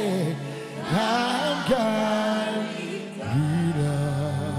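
Live gospel praise singing: several singers on microphones hold and slide through sung notes over band accompaniment. A deep low part of the accompaniment comes in about three seconds in.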